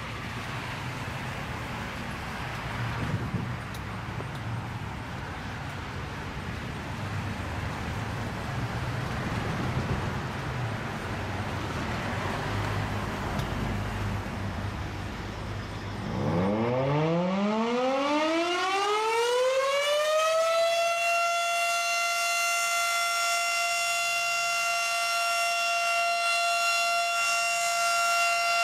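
Federal Model 5 single-tone civil defense siren starting up for its monthly test. After about sixteen seconds of steady background noise it winds up in a steeply rising tone over about four seconds, then holds one steady, loud tone.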